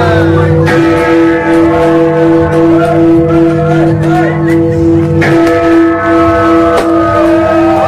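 Background music with several held bell-like notes, one note pulsing about twice a second, and short sliding notes, with sharp cracks scattered through it; the deep held notes drop out about five seconds in.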